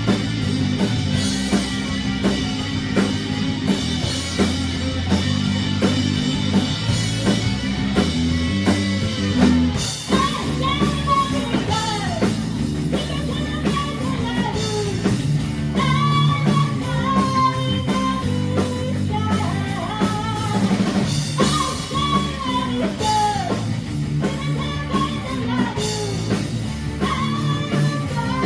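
Rock band playing, with drum kit, electric guitar and bass. About ten seconds in, a lead melody that bends and slides in pitch comes in over the backing.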